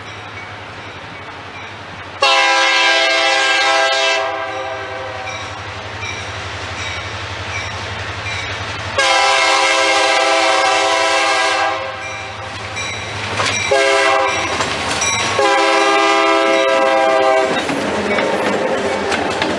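Nathan Airchime K3LA three-chime horn on a diesel locomotive, sounding the grade-crossing signal: long, long, short, long. Toward the end the locomotive passes close, its engine running and wheels clacking over the rail joints.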